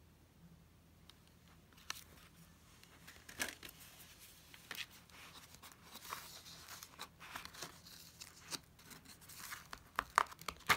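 Paper pages of a children's novelty book with die-cut holes and flaps being turned and handled: soft, irregular rustling and crinkling with small clicks and taps. It starts about two seconds in and grows busier and louder towards the end.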